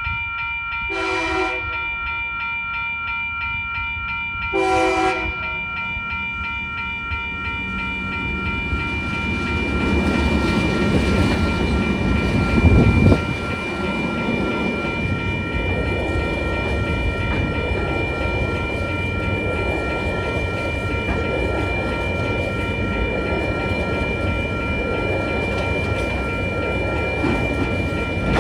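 TasRail diesel freight train sounding two short horn blasts, about one and five seconds in, over the steady ringing of level crossing bells. The locomotives then pass close by, loudest around twelve to thirteen seconds in, followed by container wagons rolling steadily past.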